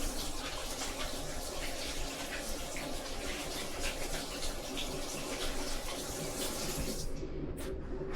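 Water running from a tap as hands are washed under it; the water shuts off about seven seconds in.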